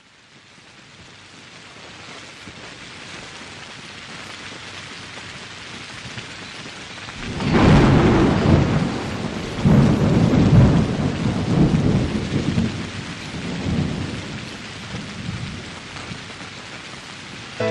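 Steady rain fading in over the first few seconds, then a loud thunderclap about seven and a half seconds in that rolls on in several rumbles for about seven seconds before dying back to the rain.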